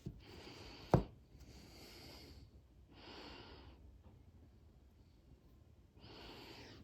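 A single sharp tap about a second in, such as a small tool against the bench, among four soft, breathy puffs of air.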